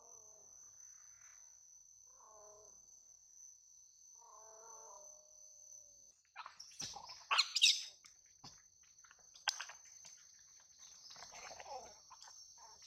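A steady high insect drone with a few faint soft calls in the first few seconds. About six seconds in, a quick run of sharp rustling and scraping clicks, loudest over the next second or two, with a few more scattered through the rest.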